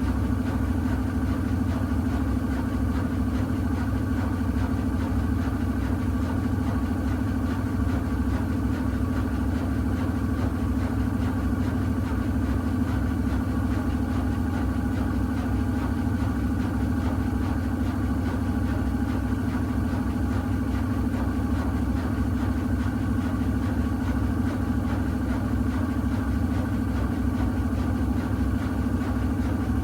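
Miele W1 Active WCA 030 front-loading washing machine spinning its drum at a steady high speed, with a constant hum and whine from its ProfiEco motor and spinning drum, as in the final spin.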